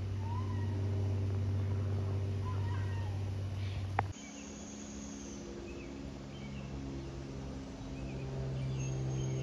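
Light propeller aircraft overhead, a steady engine drone. About four seconds in the sound cuts sharply, with a click, to another light plane droning at a slightly different pitch. A few short mewing calls sound over the first part.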